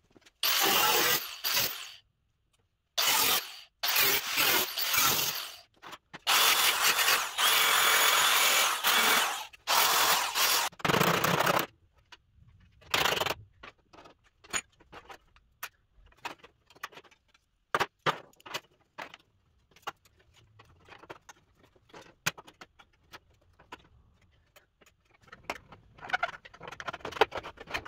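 A power tool runs on sheet metal in several loud bursts, separated by abrupt breaks. After that come faint, irregular ticks and scrapes of hand tools on sheet metal as a patch panel is clamped and a cut line is marked.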